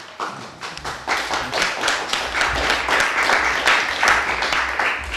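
Audience applause: many people clapping, building up over the first second and holding strong.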